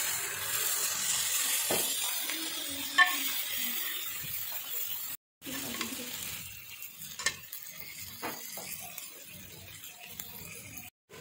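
Chicken pieces and yogurt sizzling on a hot flat griddle (tawa) as the yogurt is spooned onto them, with a few light clicks. The sizzle is strongest in the first half and dies down after a short break about five seconds in.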